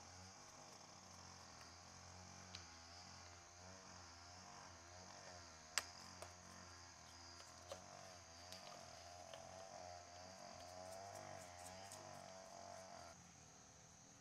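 Near silence: faint steady outdoor background with a high hiss and a low hum, broken by a few light clicks, the sharpest about six seconds in.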